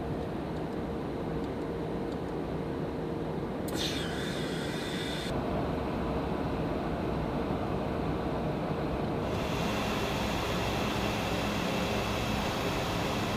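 Steady drone of aircraft engines and rushing air heard inside a refuelling tanker, with a faint steady hum running under it. The noise turns brighter and hissier briefly about four seconds in, and again from about nine seconds on.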